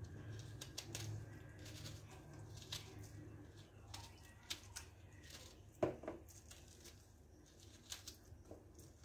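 Small kitchen knife cutting and scraping the peel and white pith off an orange by hand: faint scattered crisp clicks and scrapes, with one louder knock about six seconds in.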